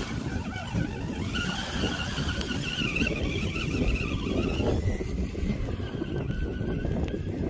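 FTX Kanyon RC crawler's electric motor and gearbox whining as it drives, a steady high whine that starts about a second in and grows fainter after about five seconds, over a steady low rumble.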